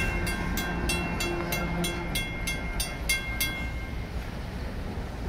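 WCH mechanical crossing bell ringing at about three strikes a second, falling silent about three and a half seconds in once the last hopper car has cleared the crossing. Under it, the train's wheels rumble on the rails throughout.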